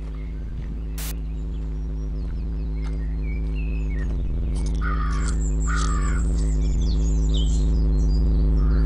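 Outdoor birdsong with short chirps and two crow caws about five and six seconds in. Under it a low steady drone grows louder throughout.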